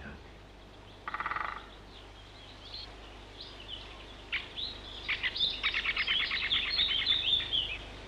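Woodland birds, with a great spotted woodpecker: a short, very fast drumming burst about a second in. Scattered chirps follow, then a longer rapid series of chirping notes for the last couple of seconds, over a steady low hum.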